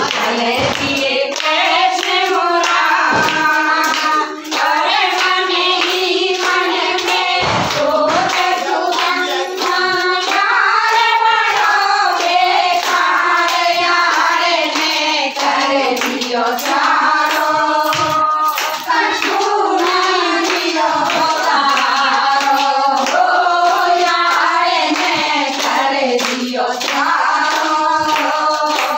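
A group of women singing a song together, accompanied by hand clapping in time.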